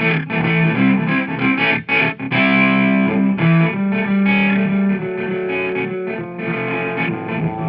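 Background rock music led by a distorted electric guitar playing a run of held notes.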